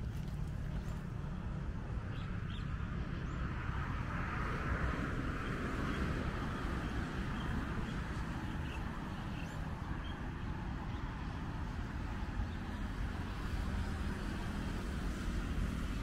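Steady rumble of road traffic, with one vehicle swelling louder between about four and seven seconds in.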